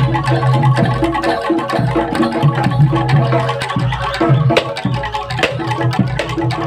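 Live Javanese gamelan playing the jaranan accompaniment: repeating metallophone and gong-chime notes over a steady drum beat, with two sharp strikes standing out about halfway through.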